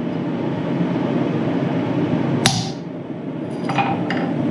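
Hammer tapping a chisel against steel bar stock to mark a bend line: one sharp strike about halfway through, then two lighter taps near the end, over a steady rushing noise.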